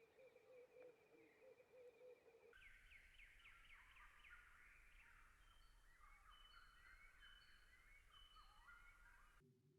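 Faint bird calls. First a low warbling, cooing call, then, after an abrupt cut, a run of quick, high, repeated chirps.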